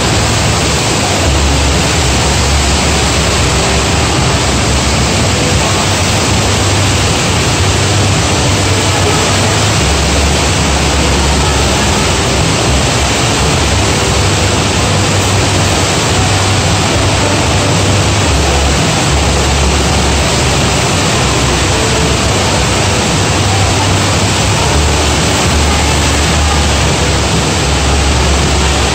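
Indoor standing-wave surf machine: a sheet of pumped water rushing steadily over the wave surface, with a low rumble underneath that comes and goes.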